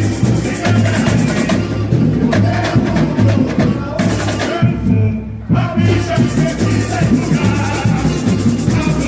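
Samba school bateria playing samba with singers: a steady surdo bass beat under dense snare and shaker percussion. About halfway through, the high percussion cuts out for about a second and then comes back in.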